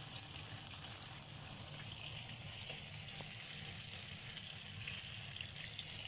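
Hot oil sizzling steadily with fine crackling as banana spring rolls (turon) deep-fry in a pan.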